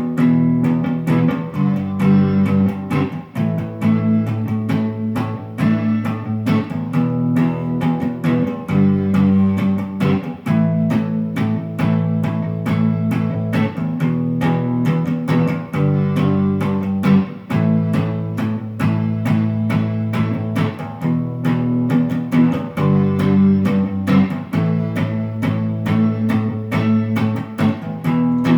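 Instrumental song intro led by guitar over a bass line, with a steady rhythm of picked notes and a repeating chord pattern.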